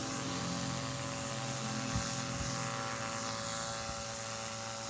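Steady electrical hum from a homemade 12 V battery inverter, with the small motor on its 12 V supply running: a constant drone of several overlapping tones.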